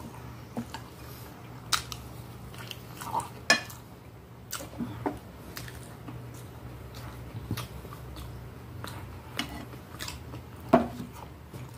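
Metal fork clinking and scraping against a glass plate, with chewing and mouth sounds, in scattered sharp clicks and taps; the sharpest come about three and a half seconds in and near the end.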